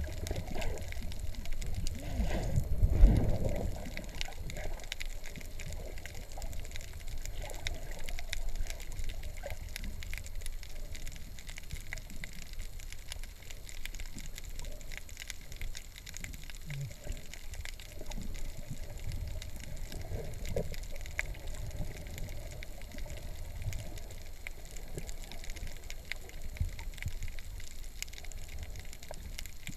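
Muffled underwater water noise picked up through a submerged camera: a steady low rumble and sloshing with many faint clicks, and a louder surge about three seconds in.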